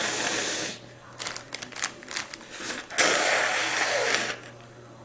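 A person blowing their nose: a short blow at the start and a longer, louder one about three seconds in, with a run of sharp crackling clicks between them.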